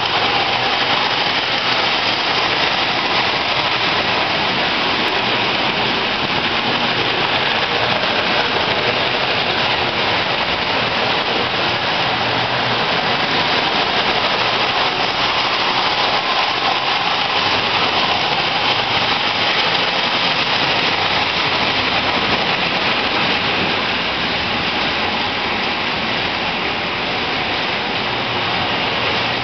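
Several Marx tinplate toy trains running at once on three-rail tin track, making a steady, dense rattle of wheels and cars over the rails.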